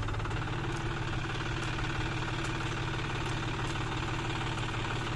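John Deere tractor's diesel engine running steadily.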